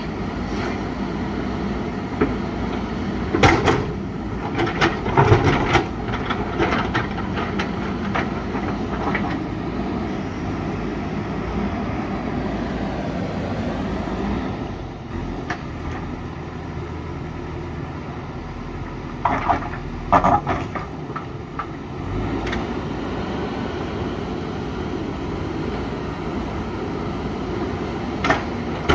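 JCB 3DX backhoe loader's diesel engine running steadily as it works, with bursts of clattering knocks of bucket and rock a few seconds in, again about two-thirds of the way through, and once near the end.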